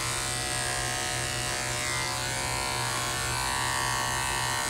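Electric dog grooming clippers running with a steady buzzing hum as they shave through a Shih Tzu's matted coat.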